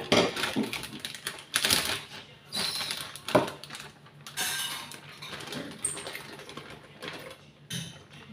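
Irregular clicks and plastic rustling as a plastic container of chopped papaya is handled and the pieces are tipped into a glass blender jar. The blender is not running.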